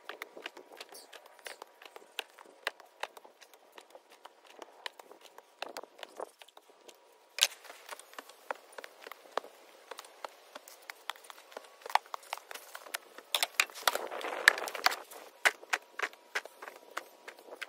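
A metal shovel scrapes into sandy dirt and tips loads into a plastic tub, making many sharp scrapes and clicks. Near the end comes a longer rush of sliding dirt.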